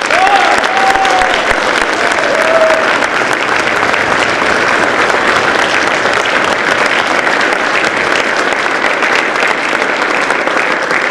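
Large indoor audience applauding steadily, with a couple of cheers over it in the first three seconds.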